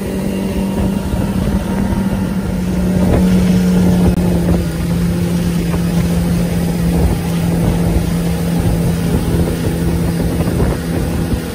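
A small speedboat's engine running steadily at cruising speed, heard from the seats under the canopy, over the rush of wind and water; the engine note settles slightly lower and louder about three seconds in.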